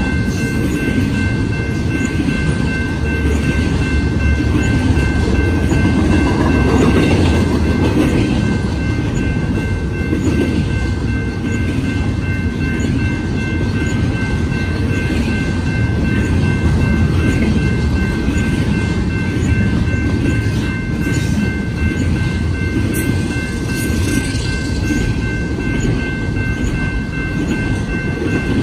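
Double-stack intermodal container cars rolling past: a steady rumble of steel wheels on the rails. A steady high ringing tone sits over the rumble throughout.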